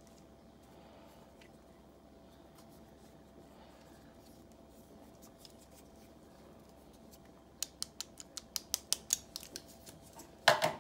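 Faint room tone with a thin steady hum, then, from about three-quarters of the way through, a quick irregular run of sharp plastic clicks and crinkles, growing louder, from a white USB charger and coiled Lightning cable being handled over bubble wrap.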